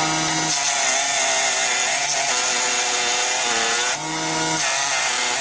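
Electric power saw cutting through a wooden board, its motor note shifting as the load on the blade changes, with a brief change about four seconds in.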